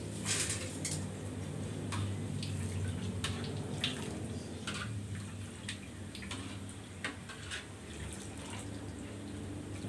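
Hot cooking oil in a wok crackling, with oil pouring and dripping back through a wire mesh strainer as fried batter crumbs are lifted out. Short sharp crackles come irregularly over a steady low hum.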